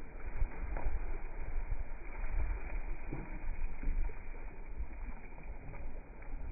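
Dragon boat paddles stroking and splashing through the water under a steady low rumble.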